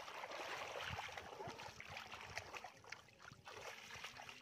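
Shallow muddy water sloshing and splashing, with a string of small splashes and squelches as feet wade and hands dig through mud.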